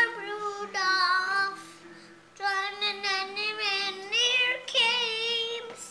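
A young child singing, holding long notes that slide in pitch, in two phrases with a short breath break about two seconds in.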